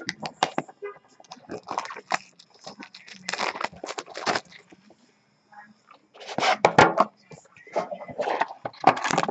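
Packaging being handled and torn open as a trading-card box is unwrapped: crinkling, tearing and crackling in short, irregular bursts.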